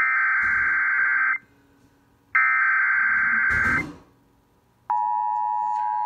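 Emergency Alert System SAME header data bursts from a radio stream played through a computer's speakers: two harsh digital screeches about 1.5 s long, a second apart. About five seconds in, the steady two-tone EAS attention signal begins, announcing a Required Monthly Test.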